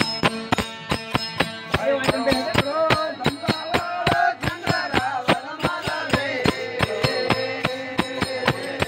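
Gujarati folk bhajan: steady drone from a tambura and harmonium with small hand cymbals struck in a fast, even beat of about four strikes a second. Men's chant-like singing comes in about two seconds in and carries on over the beat.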